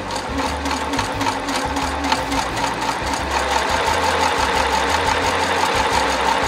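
Domestic electric sewing machine running steadily, its needle making a rapid, even clatter as it sews a long straight stitch through velvet. The long stitch is a gathering stitch, to be pulled up later into a ruffle.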